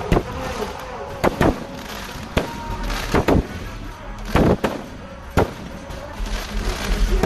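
Fireworks going off: about nine or ten sharp bangs at irregular intervals, some in quick pairs, over a steady background of crowd voices or music.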